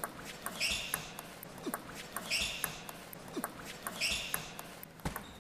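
Quiet hall between table tennis points: scattered light clicks and knocks, and three short, higher-pitched sounds spaced evenly about a second and a half apart.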